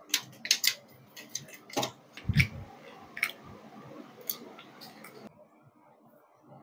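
Irregular clicks and knocks of plastic and metal printer parts being handled and fitted during the teardown of a Compuprint SP40 Plus printer, with a heavier low thump about two seconds in; quieter over the last second or so.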